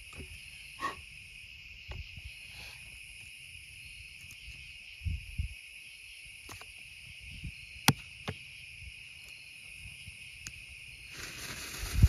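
Steady chirring of night insects such as crickets, with scattered soft clicks and knocks from a mini canister shell being loaded into its launch tube. One of the clicks, about eight seconds in, is sharp. Near the end a lit firework fuse starts to hiss and spray sparks.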